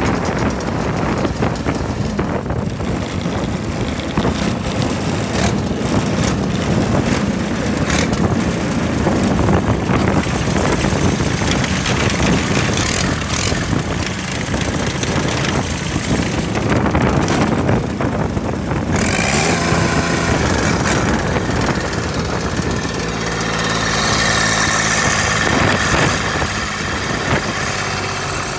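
Ford 26 hp diesel lawnmower engine running steadily, heard close to the engine and its exhaust stack. About two-thirds of the way through, its note settles into a more even, steady hum.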